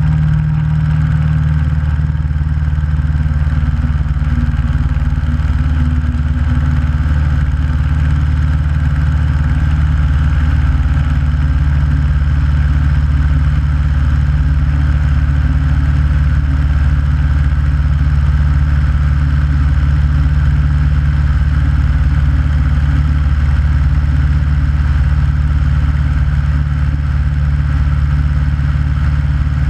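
Aeronca light aircraft's piston engine and propeller running steadily at takeoff and climb power as the ski-plane lifts off a snowy field, a loud, even drone with a strong low hum.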